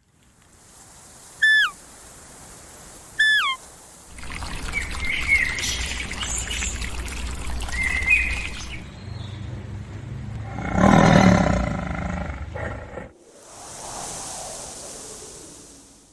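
Birds calling: two short, falling whistled calls, then scattered chirps over outdoor noise, with a louder call about eleven seconds in.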